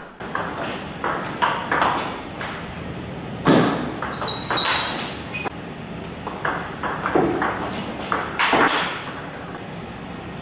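Table tennis rally: the ball clicking back and forth off the Butterfly Super ZLC carbon blades and the table in quick succession. Two louder bursts stand out, about three and a half seconds in and again near eight and a half seconds.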